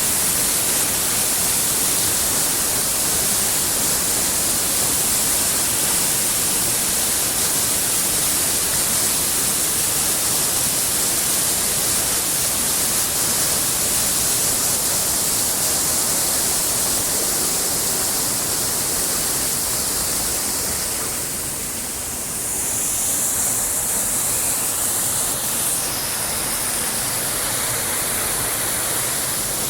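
Water rushing steadily over a dam, swollen and overflowing after heavy rains: a continuous loud rushing hiss that dips briefly and shifts in tone about three-quarters of the way through.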